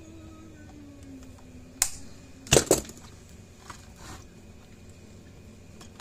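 Three sharp snaps, one about two seconds in and a louder pair close together just after: diagonal cutters snipping the tails off plastic cable ties, with tools handled on a wooden workbench.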